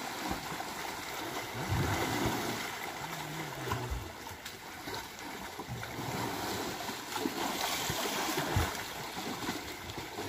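River water splashing and sloshing as African elephants wade and shove through it, with a few brief low voice-like sounds.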